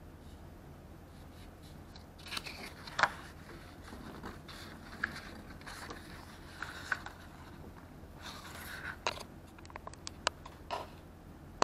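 Drawing paper being handled: rustling and scraping as the sheet is shifted and a paper heart sticker is put on and smoothed down, with a few sharp clicks near the end.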